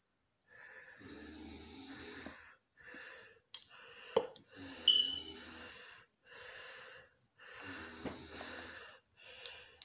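A person's heavy, wheezy breathing close to the microphone, one breath after another, about seven in all. A couple of small clicks fall near the middle.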